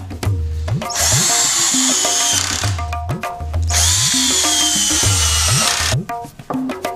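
Cordless drill-driver running in two bursts of about two seconds each, driving screws through a steel bracket into wood; its motor whine sinks a little as each screw goes in. Rhythmic background music with tabla-like drumming plays throughout.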